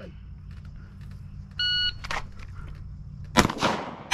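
Shot timer giving its start beep, a short steady tone about a second and a half in, followed by two gunshots near the end as the shooter starts the timed course of fire.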